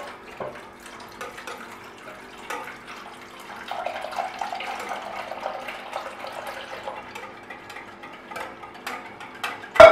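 Warm milk poured from a saucepan into a glass bowl of beaten eggs, splashing steadily while a wire whisk ticks against the glass. A single loud knock near the end.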